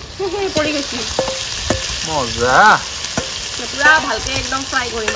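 Marinated mutton sizzling hard as it is tipped into very hot oil in a black iron kadai, with a steel spatula and bowl scraping the pan. Several short squealing tones sound over the sizzle, the loudest about halfway through.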